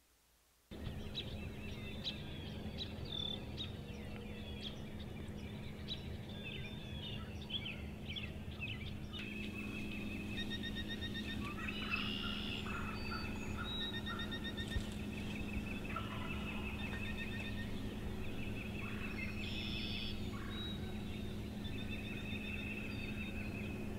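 Wild turkey gobblers gobbling twice, about halfway through and again a few seconds later, over a dawn chorus of songbirds chirping and trilling, with a steady low hum underneath.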